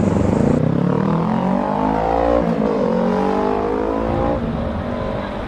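Motorcycle engine accelerating: its pitch rises, dips briefly about two and a half seconds in as at a gear change, rises again, then drops off suddenly a little after four seconds. Road and wind noise run underneath.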